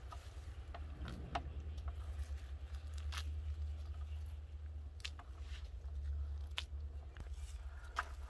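Red rose petals being plucked by hand from the bush and gathered into a plastic bowl: scattered small snaps and rustles with a few sharp clicks, over a steady low rumble.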